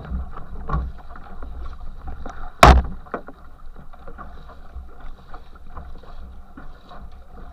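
Water churning in the wake right behind a racing canoe, with short splashing strokes recurring about every second. A sudden loud hit about two and a half seconds in is the loudest sound.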